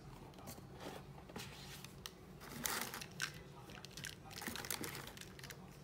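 Clear plastic air-pillow packing crinkling and rustling in a cardboard box as items are handled and lifted out, in irregular bursts, loudest about two and a half to three and a half seconds in and again around four and a half seconds in.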